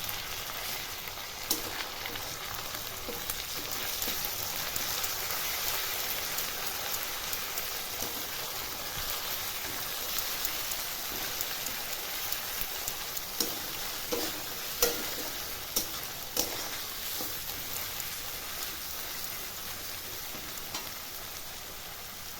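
Garlic paste and browned onions sizzling in hot mustard oil in a kadai, a steady frying hiss with occasional clicks and knocks of a spatula stirring against the pan.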